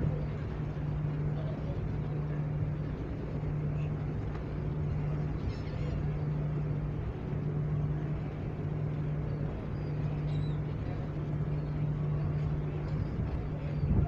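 Steady low hum from the cruise ship's machinery over a rushing background of wind and sea. The hum drops out briefly now and then, and a few faint seagull calls come through.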